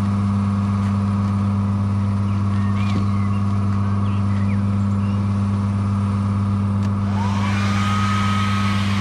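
Steady machine hum, a constant deep drone, joined about seven seconds in by the hiss of a paint spray gun spraying the bumper.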